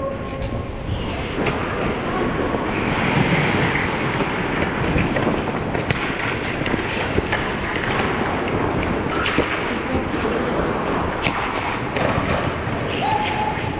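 Ice hockey play on an indoor rink: skates scraping and carving the ice, with scattered sharp clacks of sticks and puck.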